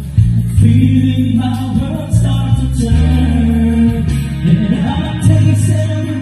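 A man singing a pop-rock ballad into a handheld microphone over amplified accompaniment of sustained low chords that change about once a second.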